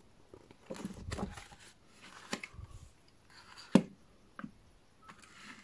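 Handling noises of small plastic toy parts: scattered rustles and light clicks, with one sharp click a little past the middle.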